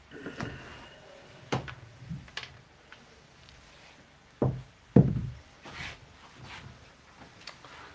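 A scattered series of sharp knocks and clatters from play on a craps table: the wooden stick and the dice tapping against the table, with the loudest two knocks close together about halfway through.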